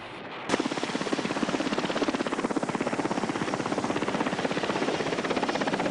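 Helicopter running close by, its rotor beating rapidly and evenly over engine noise. The sound starts abruptly about half a second in.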